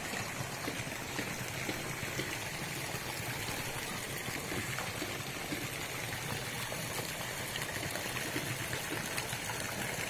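Steady pouring and splashing of a thin jet of water falling from an inlet pipe into a pond.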